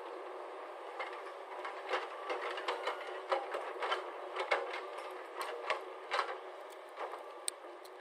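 Hyundai crawler excavator's diesel engine running with a steady hum, and from about a second in a run of sharp clanks and knocks as the bucket swings down and digs into the earth.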